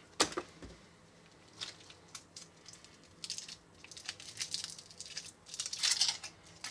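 Handling and eating a Baci hazelnut chocolate, with its foil wrapper: a sharp click near the start, then scattered crinkles and crunches, busiest near the end.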